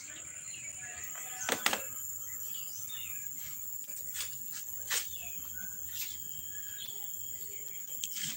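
Steady high-pitched drone of insects such as crickets, with faint short bird chirps and a few sharp clicks or taps, the loudest a double click about a second and a half in.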